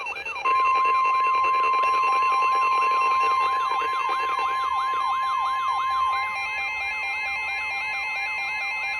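Weather alert alarm: a fast, repeating siren-like rising wail, several sweeps a second, with NOAA Weather Radio's steady 1050 Hz warning alarm tone joining about half a second in and stopping about six seconds in. It signals that a new warning broadcast is starting.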